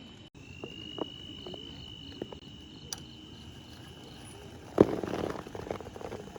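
A steady high-pitched insect trill with a few light clicks. About five seconds in there is a sharp knock, then rustling.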